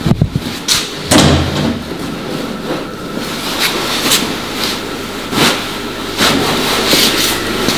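Footsteps walking outdoors, falling about every half second to second, over a steady low hum.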